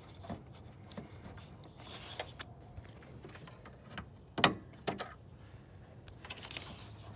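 Small plastic clicks and scraping from a small flathead screwdriver prying at the locking tab of a headlight bulb's plastic wiring connector while the connector is tugged. There are scattered light clicks, with one sharp click about four and a half seconds in.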